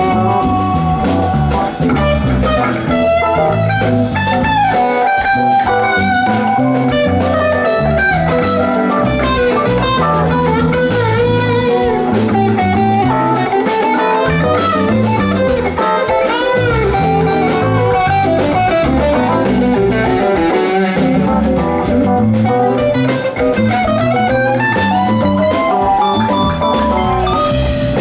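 Live band playing an instrumental jam: electric guitar lead lines winding up and down over electric bass and drum kit.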